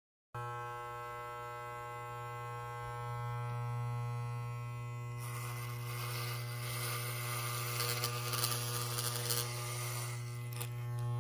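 Electric hair clippers switched on and running with a steady buzz. About five seconds in, a rougher rasping hiss joins, as the clippers cut into hair.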